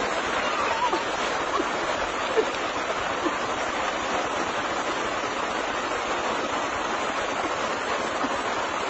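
Steady rush of flowing stream water, with a few short chirps in the first three seconds.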